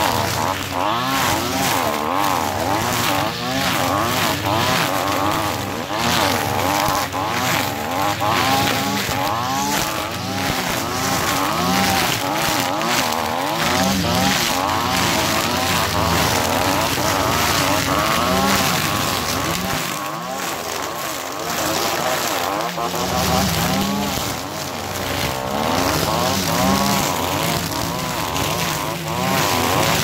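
Two two-stroke backpack brush cutters, a Stihl FR 480 and one with a Kawasaki TJ53 engine, running together. Their engine pitch rises and falls as the nylon line cuts through brambles and thorny scrub.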